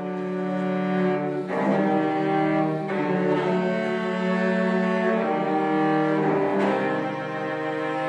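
Solo cello with orchestral strings playing slow, long-held bowed notes, with a low sustained bass. The harmony shifts to new held chords three times.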